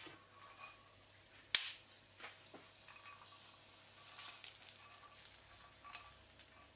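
Toasted almonds and pine nuts tipped from a frying pan onto a mound of rice and meat, with a sharp knock about a second and a half in, then a light patter of small ticks as the nuts land.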